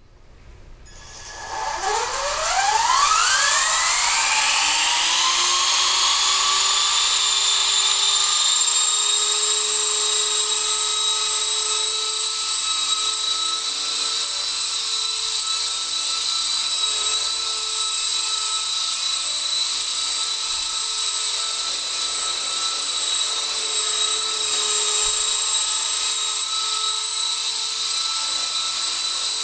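E-flite Blade CP Pro electric collective-pitch RC helicopter spooling up from rest, its motor and rotor whine rising in pitch over the first few seconds. It then holds a loud, steady whine as it lifts off and hovers.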